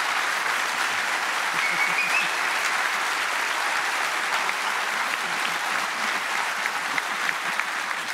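A large audience applauding, a sustained, steady round of clapping.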